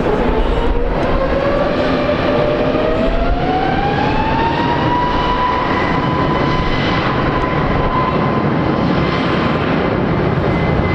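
Airbus A320neo's CFM LEAP-1A turbofan engines spooling up for takeoff. A whine rises over the first few seconds and then holds steady at high thrust, over a broad engine rumble.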